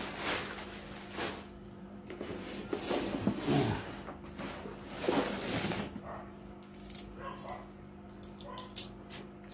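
Clear plastic wrapping crinkling and rustling in bursts as it is pulled off a hard plastic tool case. Near the end come a run of light clicks and taps, all over a steady low hum.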